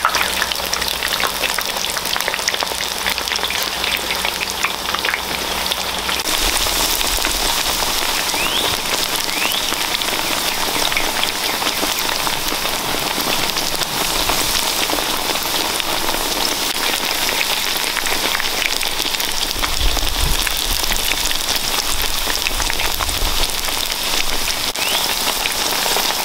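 Ground chicken patties shallow-frying in hot oil in a skillet: a steady sizzle full of dense, fine crackling pops.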